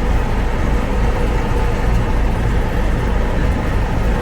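Steady low rumble of a moving vehicle, loud and continuous with no distinct knocks or changes.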